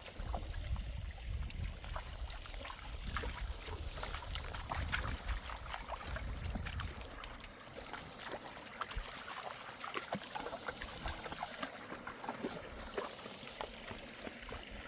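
Mountain stream running over stones, a steady trickling rush, with scattered light clicks and knocks. A low rumble runs under it for about the first half.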